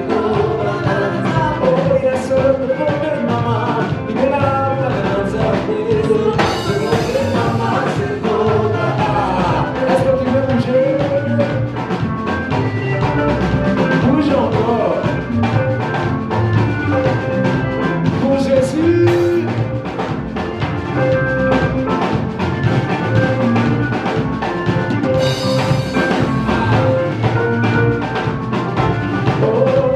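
Live church praise-and-worship band playing gospel music with a drum kit keeping a steady beat, with voices singing at times. Two cymbal crashes, about six seconds in and again near the end.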